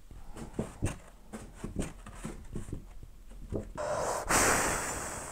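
A sheet of paper waved back and forth, flapping in quick whooshes about three times a second. About four seconds in comes one long, loud blow of breath across the paper, to dry the wet white acrylic marker ink.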